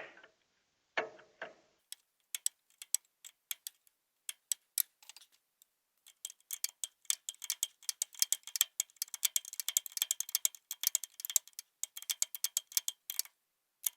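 Ratchet wrench clicking as it is worked back and forth, tightening a diesel preheater into its threaded hole. The clicks come singly for the first few seconds, then in quick runs of several a second from about six seconds in, stopping shortly before the end.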